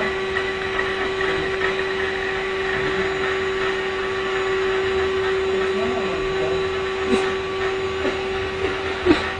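Vacuum cleaner running steadily, a constant motor hum with a single held tone. A sharp knock near the end.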